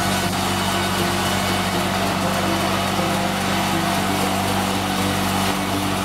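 Sawmill machinery running steadily, an engine drone under the even noise of the saw, as an acacia log is sawn.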